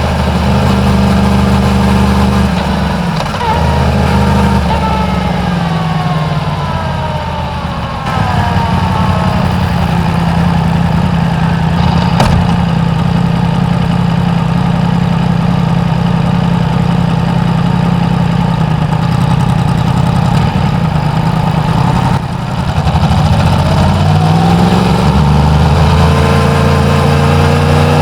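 Yamaha MT-10's crossplane inline-four engine through its stock exhaust. The revs fall as the bike slows, then it idles steadily for about a dozen seconds, and the revs climb again near the end as it pulls away.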